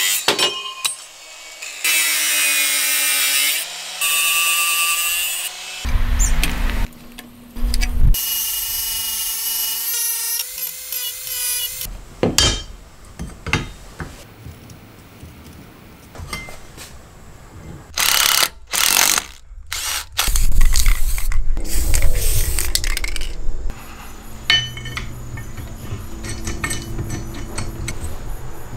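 Makita 18V cordless angle grinder cutting steel plate in several separate bursts, its motor whining under load. Between and after the bursts come sharp clicks and knocks of metal parts being handled.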